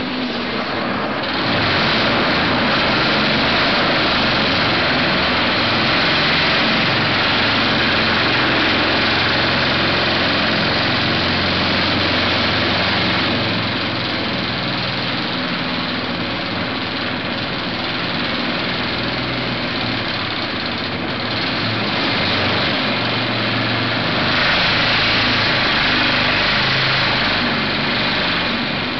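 MKT V-5Esc side-clamping hydraulic vibratory hammer running on an excavator, vibrating a steel pile down, along with the excavator's engine under load. The steady noise picks up about a second and a half in and swells again near the end.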